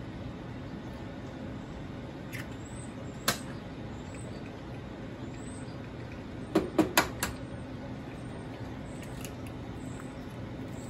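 Egg frying in oil in a nonstick pan: a steady, low sizzle, with a sharp click about three seconds in and a quick run of four clicks a little before halfway through the second half.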